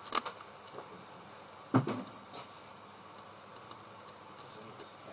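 A couple of short clicks near the start, then a single louder knock a little under two seconds in, over faint steady room noise.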